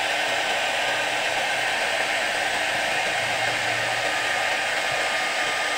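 Handheld hair dryer blowing steadily on high with a faint even whine, heating the glue on a CRT's deflection yoke to soften it.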